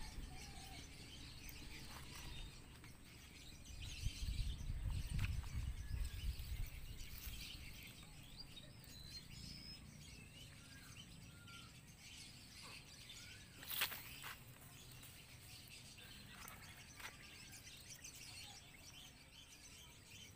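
Outdoor ambience of faint, scattered bird chirps. A low rumble swells from about four to seven seconds in, and a single sharp click comes about two-thirds of the way through.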